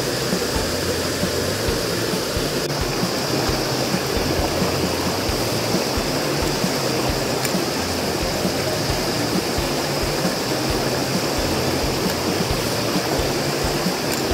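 Mountain creek water rushing steadily over rocks and small cascades.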